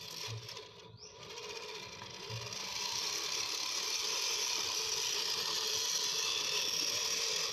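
Electric drive motor and gearbox of a handmade RC Jeep Rubicon crawler whirring as it drives. A short rising whine comes about a second in, then the whir grows louder and holds steady before cutting off suddenly at the end.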